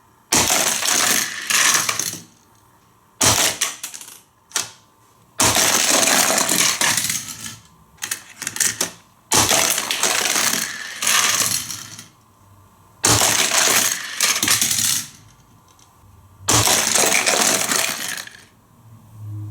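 Hard plastic toy playset pieces clattering and rattling in repeated bursts, each lasting one to two seconds, with short quiet gaps between them.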